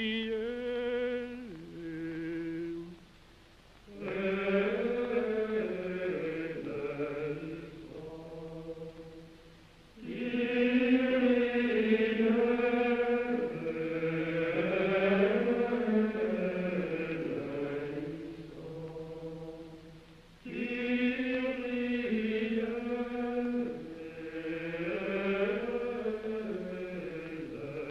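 Slow vocal chant sung in long, smoothly moving melodic phrases, separated by short pauses between phrases.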